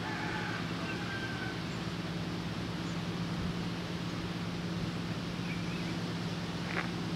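Outdoor ambience: a steady low hum over a constant hiss, with a few faint bird chirps near the start and again near the end.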